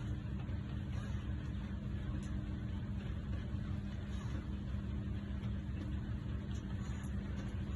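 Radio-controlled model excavator's motors running with a steady low hum.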